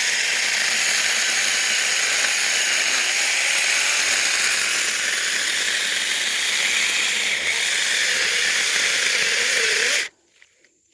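A 4-inch cordless electric mini chainsaw running steadily as it cuts through a coppiced stem, then cutting off abruptly about ten seconds in.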